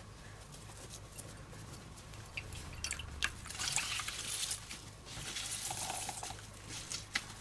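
Potato juice trickling and splashing into a glass bowl as grated raw potatoes are wrung out in a dish towel. It comes in several surges with each squeeze, starting a couple of seconds in.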